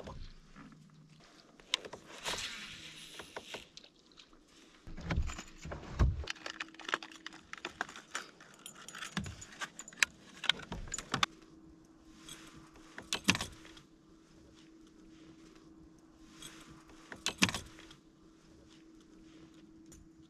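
Fishing tackle being handled: scattered metallic clinks and rattles with a few dull knocks, and a faint steady hum from about five seconds in.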